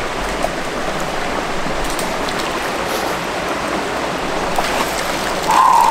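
Steady rush of a small creek's flowing water, an even hiss with no breaks. Near the end a short, steady, higher tone rises briefly above it.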